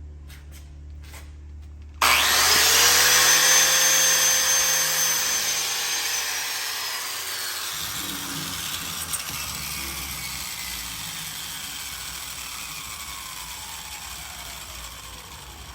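Handheld power grinder switched on with a sudden high whine, running at full speed for about four seconds, then released and winding down slowly, its whine falling steadily in pitch.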